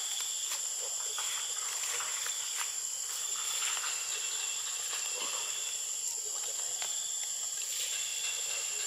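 Steady, high-pitched insect chorus: one continuous shrill tone with a weaker, lower-pitched band beneath it, and a few faint ticks.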